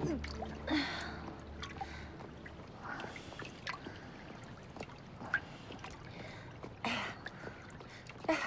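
Water sloshing and splashing in a wooden bucket as it is hauled from a well and carried, with a few light knocks and breathy effort sounds.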